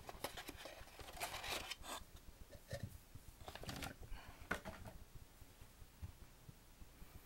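Faint rustling, scraping and irregular light clicks of a flip phone and its battery being pulled out of a plastic packaging tray and handled.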